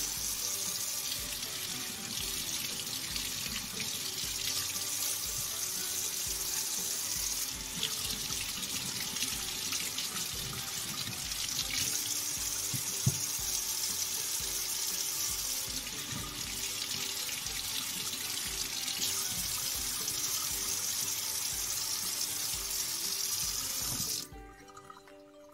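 Kitchen faucet running steadily into a stainless steel sink as fruit is rinsed under the stream, the water splashing off the fruit and the sink basin; the tap is shut off suddenly near the end.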